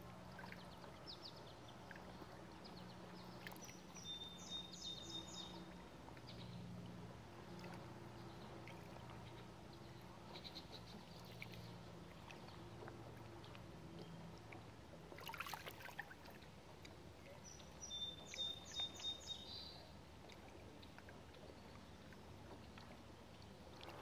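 Small ripples lapping faintly against rocks and the sandy edge of a lake. A bird calls twice, about 4 and 18 seconds in, each time a short steady whistle followed by a quick run of high notes. There is a sharp tap about 15 seconds in.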